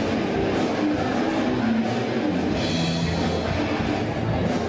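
Loud rock music with a drum kit, playing steadily.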